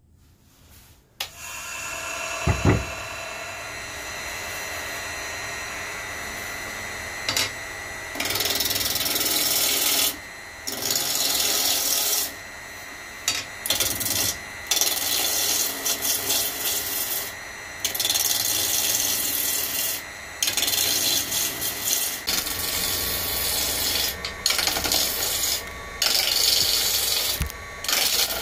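Wood lathe starting up and running with a steady whine, a knock about two and a half seconds in. From about eight seconds, a gouge cuts into the spinning bark-covered cherry branch in repeated passes, each a rough cutting noise of a second or two with short pauses between.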